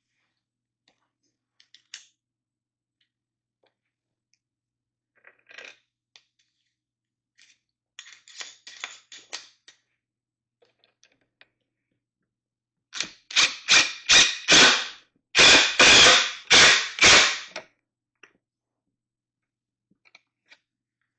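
Cordless power driver run in short trigger bursts, tightening the bolt that fastens a barstool leg to the seat frame: a quieter run of brief bursts about eight seconds in, then a louder run of about nine sharp bursts in the middle.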